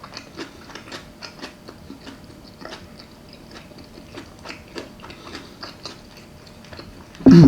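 A person chewing onions close to the microphone: a run of small, irregular wet clicks and crunches. Near the end comes a short, loud hum of the voice.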